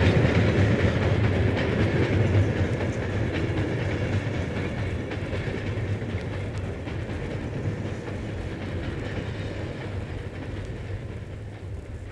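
A train recording played from a vinyl train-sounds record: a train running on the rails, its noise fading steadily away.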